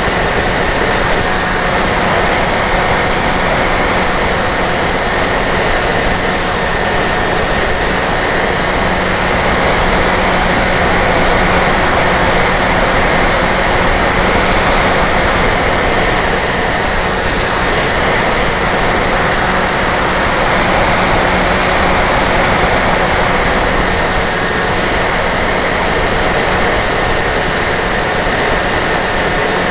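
Electric motor and propeller of a Dynam Hawk Sky RC plane running steadily in flight under a heavy rush of wind, heard through the plane's onboard camera microphone, with a faint steady hum.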